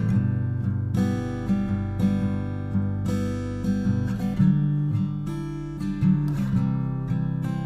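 Background music: strummed acoustic guitar playing a steady, gentle chord pattern.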